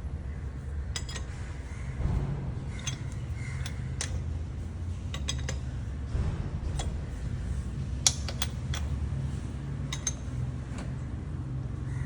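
Scattered metallic clinks and clicks of a lug wrench working on the wheel nuts as they are tightened onto a car wheel, the sharpest about eight seconds in, over a steady low hum.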